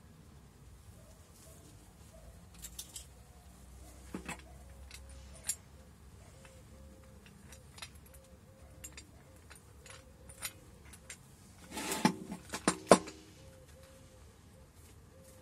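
Black steel parts of an angle grinder stand being handled: scattered light metal clicks and clinks as the clamp arm is moved and its ties come off, with a louder pair of knocks about twelve and thirteen seconds in.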